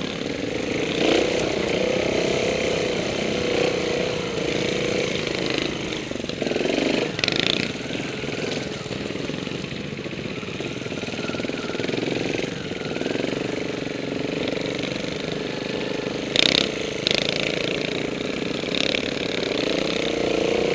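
Off-road motorcycle engine running at low revs, its pitch rising and falling with the throttle. Brief sharp noises cut in about seven seconds in and again near sixteen seconds.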